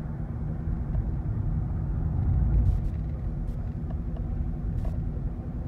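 Steady low road and engine rumble inside the cabin of a Toyota Sienna minivan driving at road speed.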